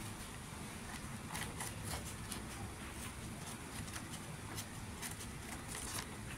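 Scissors snipping through paper in short, irregular cuts, several a second.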